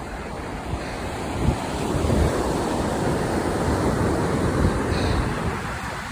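Ocean surf washing onto a sandy beach, with wind buffeting the microphone; the wash swells about two seconds in and eases near the end.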